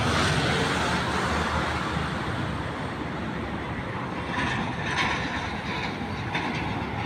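Highway traffic, steady noise of cars and trucks driving past, with a vehicle passing a little louder about four to five seconds in.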